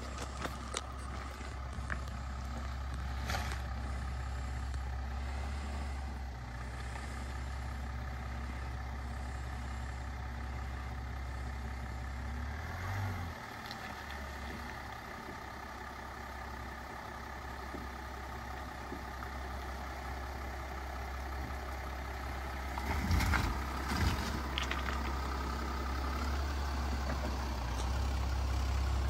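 Range Rover Velar 3.0 V6 engine running at low speed as the SUV crawls over a wet gravel track, giving a steady low hum. There are a couple of short louder knocks about three quarters of the way through, and the sound grows louder near the end as the car pulls up close.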